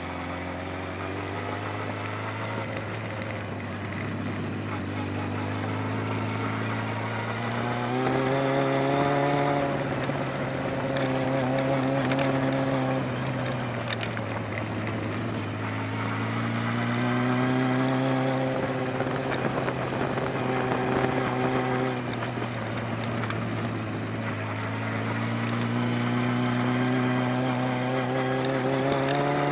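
Sport motorcycle engine running through tight gymkhana turns, its revs climbing and dropping three times as the rider accelerates between cones and rolls off into the turns.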